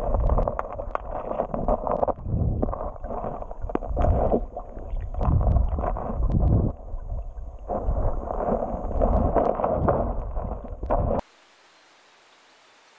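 Muffled underwater rushing and knocking of a river, heard through a camera held underwater while someone wades in boots over a stony bed. It swells and fades in surges every second or two, with small sharp clicks, then cuts off suddenly to a faint steady hiss near the end.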